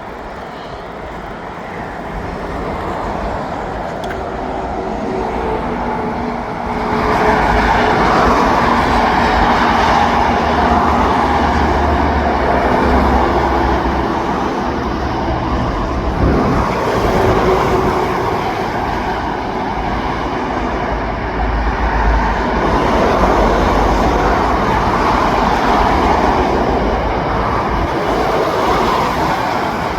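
Heavy vehicle running close by, growing louder about seven seconds in and staying loud, with a deep low rumble under it.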